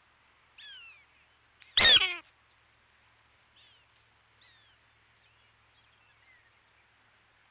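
Prairie dog calls: a short falling chirp about half a second in, then one much louder close call around two seconds in, followed by several faint short falling chirps.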